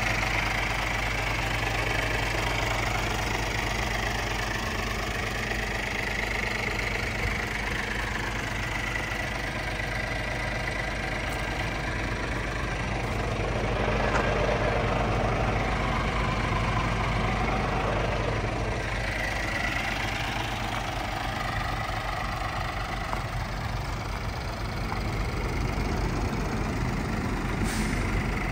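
Scania R450 tractor unit's 13-litre six-cylinder diesel engine idling steadily.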